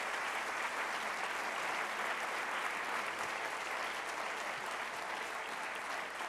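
A large seated audience applauding steadily, beginning to ease off near the end.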